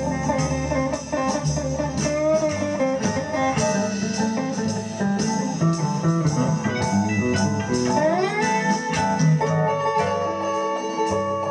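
Blues on bottleneck slide guitar: plucked notes with a rising slide about eight seconds in, the note then held.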